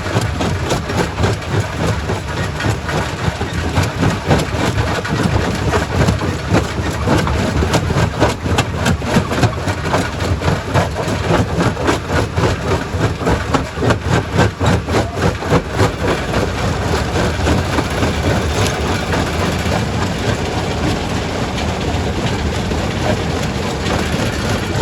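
Quarry primary rock crusher running under load: a heavy, low machine drone with rock knocking and clattering in many quick strikes, busiest about halfway through.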